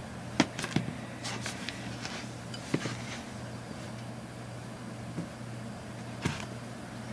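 Quiet room tone with a steady low hum, broken by a few light taps and rustles from a green cat teaser toy being flicked and dragged over a carpeted floor.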